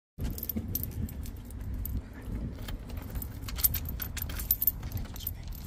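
A bunch of keys jangling and clicking as a key is worked into a front-door lock, over a low rumble.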